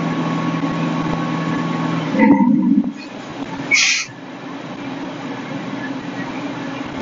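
Fire apparatus engines running steadily. A held hum in the drone cuts off about two seconds in, followed by a short loud noise and, about a second and a half later, a brief high hiss, before the steady running sound carries on a little quieter.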